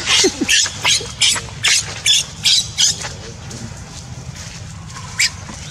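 Baby macaque screaming in a quick run of short, shrill squeals, about two or three a second, while its mother holds it down. The cries stop about three seconds in, and one more comes near the end.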